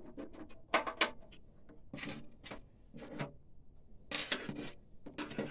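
A string of separate sharp plastic clicks and knocks, some in quick pairs, from pressing the buttons on the DTG printer's freshly refitted control-panel keyboard. The buttons are being tried to see whether the top one still presses, which it may not if the keyboard is off-centre and the screws are too tight.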